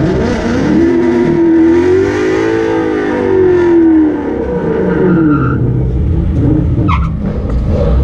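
Drag race car engine held at high revs with a wavering pitch during a burnout, then falling away about four seconds in as it lets off. Tire noise runs under it, and there is a brief sharp click about seven seconds in.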